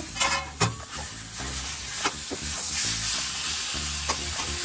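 Mashed peas, potatoes and chopped tomato sizzling in oil in a steel kadhai as a steel spatula stirs them. The spatula clicks and scrapes against the pan a few times over the steady sizzle.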